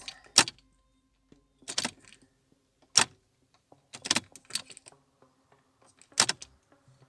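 Car keys and keyring jangling and clicking as the key is turned again and again in a BMW E46's ignition switch, a sharp clatter every second or so with no starter cranking. These are repeated start attempts against a no-start fault that the owner traces to a failing ignition switch.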